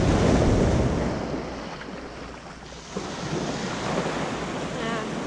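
Small surf breaking and washing up the beach at the waterline, with wind rumbling on the microphone. One wash swells loud at the start and fades over the next two seconds, and another rushes in suddenly about three seconds in.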